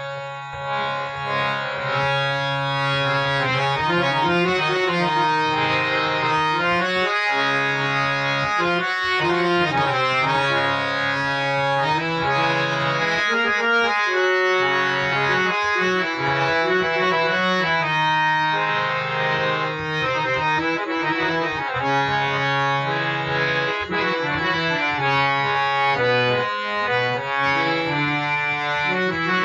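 Vertical harmonium with three reed sets (two male, one female) being played: a melody of sustained reed notes and chords over a held low note, with brief gaps where the bass drops out.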